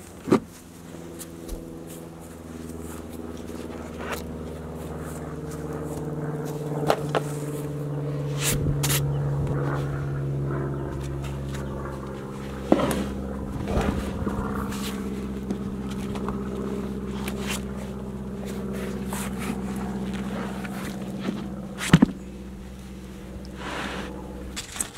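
A steady engine drone, growing louder over the first few seconds, with its pitch wandering slightly. Over it come a few knocks and scrapes: a kettlebell lifted off a wooden stump and rubber mats handled, with a sharp knock right at the start, a cluster around the middle and another near the end.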